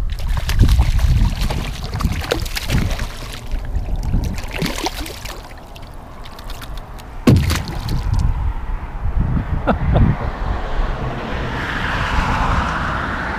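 Water splashing and sloshing as a hooked bass thrashes at the side of a kayak and is grabbed by hand, with scattered clicks and one sharp knock about halfway through.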